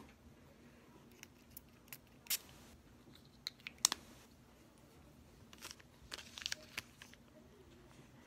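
Faint, scattered clicks and crinkles of a small perfume sample vial being handled and taken out of its plastic bag, the sharpest click a little under halfway through.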